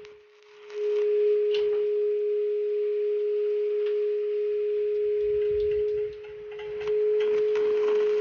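Angle grinder with a flap disc running with a steady high whine, grinding down welds on thin steel square tubing; it eases off the metal briefly about six seconds in and bears down again.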